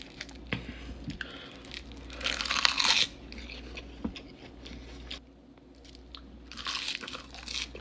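Close-miked eating of raw marinated crab: scattered crunches of crab shell and wet smacking and sucking, with louder wet stretches about two seconds in and again near the end.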